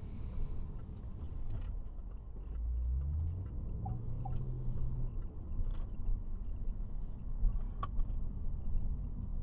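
Car engine and road noise heard from inside the cabin. The engine rises in pitch as it accelerates about two to three seconds in, and a few sharp knocks come near the end.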